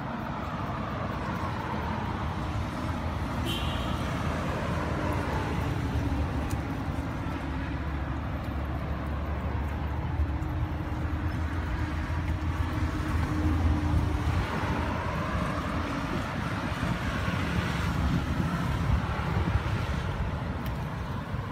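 Low, steady rumble of a motor vehicle engine running nearby, swelling toward the middle and then easing off a little.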